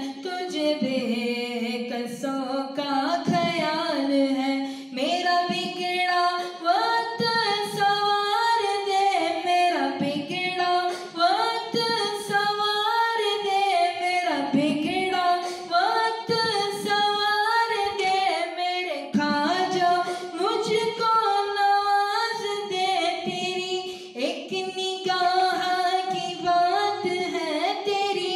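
A man singing a manqabat, a devotional Sufi song, unaccompanied into a microphone, with long held notes that bend and waver.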